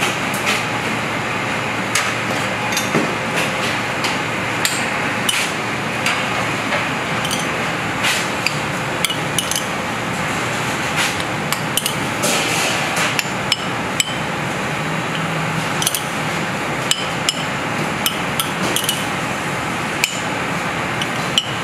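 Metal spoon clinking and scraping against a ceramic bowl as diced tuna tartare is stirred, with irregular sharp clicks over a steady hiss of kitchen ventilation.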